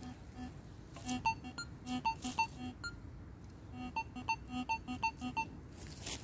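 Metal detector beeping in short tones of a low and a higher pitch as its search coil is swept back and forth over a freshly dug hole, signalling metal in the hole. The beeps come in quick runs, pause briefly midway, and stop shortly before the end.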